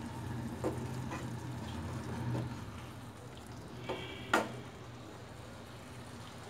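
Wooden spatula stirring and spooning thick onion-tomato masala gravy in a nonstick pan while the gravy sizzles, with a few soft knocks of the spatula against the pan, the clearest about four seconds in.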